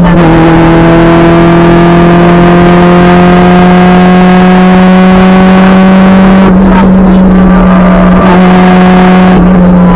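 Honda B18B1 1.8-litre inline-four under hard load, loud and raspy because its exhaust is open after the catalytic converter. The note climbs slowly and steadily, breaks briefly about two-thirds of the way through and again near the end, then carries on.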